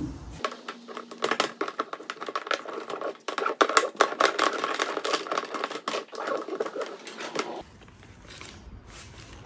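Rapid clattering and rubbing of stiff plastic tubing being handled and fed through a hole in a plastic tank lid: many quick little clicks and knocks, which stop about three-quarters of the way in and give way to a much fainter stretch.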